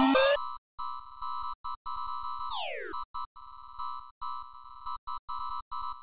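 An emergency-alert-style alarm tone, steady and near 1 kHz, chopped on and off in irregular stutters as in a remix edit, with one fast falling sweep about two and a half seconds in. A pulsing electronic dance beat cuts off just after the start.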